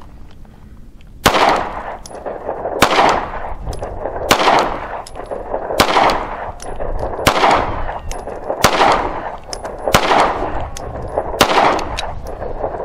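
Eight shots from a Taurus G3X 9mm pistol firing Federal Syntech polymer-jacketed ammunition, about one and a half seconds apart, each trailing off in a short echo. The pistol cycles the ammo through all eight rounds.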